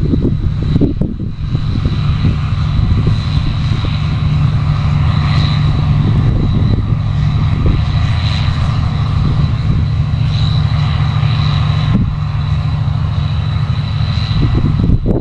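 New Holland CX8070 combine harvester running steadily while harvesting: a deep, even engine drone with a thin, constant high whine above it.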